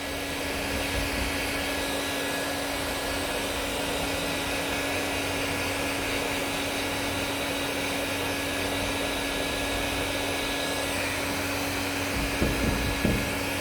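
Hot air gun blowing steadily, a constant rush of air over a steady motor hum, used to warm the glue to about 50 degrees to activate it. A few low knocks of handling come near the end.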